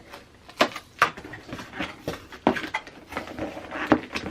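A cardboard box and its packaging being handled and opened: irregular rustling with several sharp knocks and taps.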